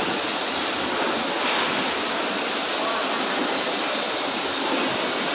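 Steady, even rushing noise of a railway coach workshop.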